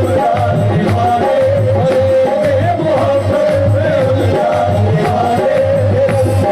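Live band music: a held, wavering melody over a steady low drum beat.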